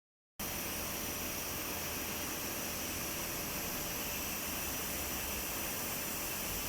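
Steady hiss with a faint steady hum, starting a moment in and running on evenly without any cut or impact.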